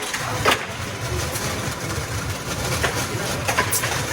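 Automatic seeding machine for rice seedling trays running: a steady low mechanical hum with occasional sharp clacks.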